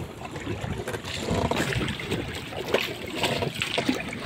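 Oars of a small rowboat dipping and pulling through the water, with irregular splashes and water washing against the hull.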